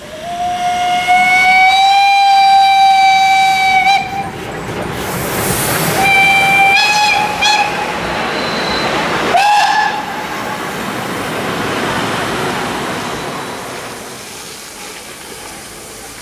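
Steam locomotive whistle: one long blast of about four seconds, a shorter, broken one a couple of seconds later and a brief toot near ten seconds. Under it runs the hiss and running noise of a steam train pulling into the station, which swells and then fades away.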